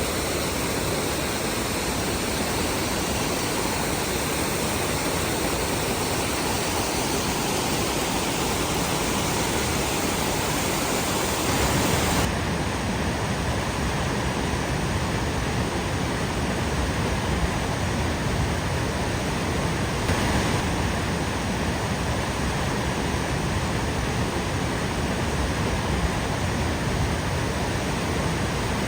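Steady roar of rushing water from a large river waterfall, the Batchawana Falls. The sound shifts abruptly about twelve seconds in, as to a different spot by the falls.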